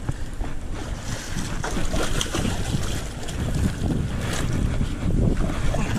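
Wind buffeting an action camera's microphone, with irregular rustling and small knocks from the camera moving.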